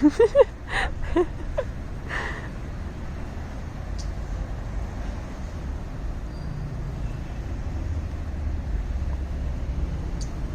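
Steady low rumble of a car's engine and road noise, heard from inside the moving car. A few short high-pitched sounds come in the first two seconds.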